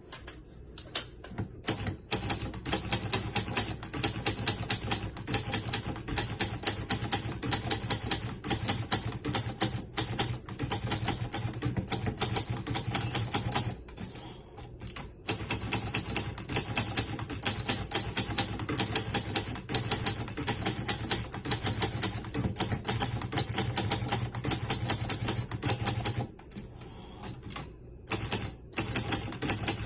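1961 Hermes 3000 manual portable typewriter being typed on: a rapid, steady run of keystrokes and typebar clacks. The run breaks off briefly about halfway through and again near the end.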